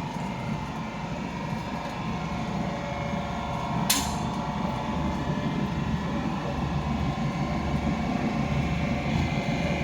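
Hydraulic baler running its side press stroke: the steady hum of the motor and hydraulic pump, with a sharp click about four seconds in, growing slightly louder towards the end.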